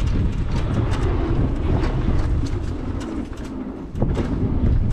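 Outrider Coyote electric four-wheel-drive ATV driving over rough ground: a low rumble of tyres and chassis, with many short clicks and crackles from debris underneath. It eases off briefly a little after three seconds and picks up again about four seconds in.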